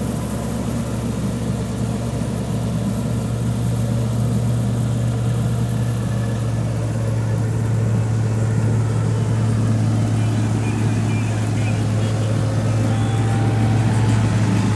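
Tractor engine running steadily while driving a straw chopper through wheat straw, a constant low hum that grows slightly louder toward the end.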